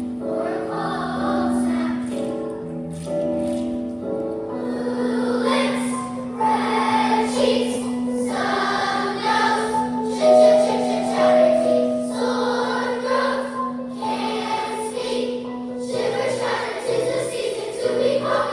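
A choir singing, with one low note held steadily under the voices through the middle.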